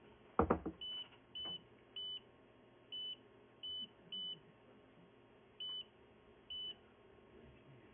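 Handheld digital oscilloscope's button beeps: eight short, identical high beeps at irregular intervals as its keys are pressed. A single knock about half a second in is the loudest sound.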